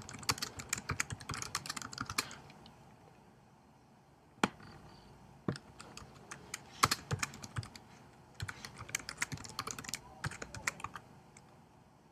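Typing on a computer keyboard in quick runs of keystrokes, with pauses and a few single key presses in between.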